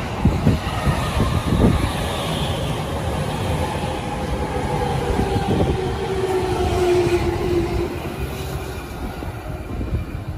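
A JR 209-series electric commuter train pulling away past the platform: its wheels clatter over the rail joints in the first couple of seconds, and the motor whine falls steadily in pitch as it draws off.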